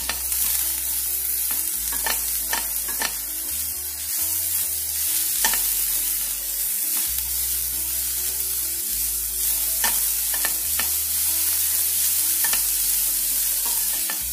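Chopped vegetables sautéing in a pan with a steady sizzle, while a spatula stirs and scrapes against the pan in scattered clicks.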